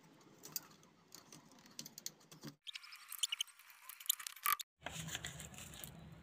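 Light clicks, taps and scrapes of hands working small parts in an electric wood cutter's motor housing: a screwdriver at the field coil and brush-holder leads, and the plastic end cover being handled. The sound cuts out briefly twice.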